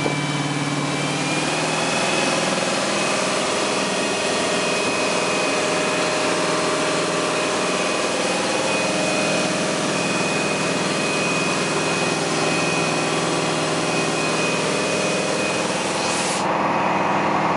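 Monsoon 410 6.2-litre V8 inboard engine of a Malibu Wakesetter 23 LSV running steadily while the boat is under way, heard through the open engine hatch. Its pitch steps up slightly about a second and a half in, and the sound turns duller near the end.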